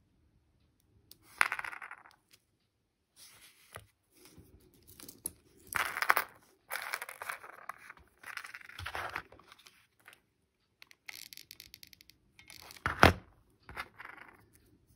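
Small coquina shells scraped and shuffled across a cardboard surface by hand, in a series of brief scratchy rustles with light clinks. About 13 seconds in, a single sharp knock is the loudest sound.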